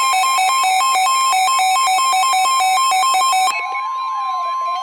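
Weather radio alert going off for a severe thunderstorm warning: a loud, fast high-low two-tone beeping. About three and a half seconds in it changes to a rising-and-falling siren warble over a steady high tone, the NOAA Weather Radio warning alarm tone.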